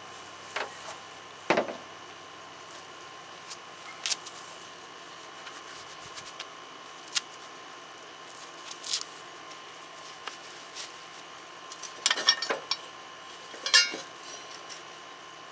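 Scattered light clicks and knocks from tools and metal mower-deck parts being handled. Near the end come two short rattling clatters as the spindle pulley is taken in hand.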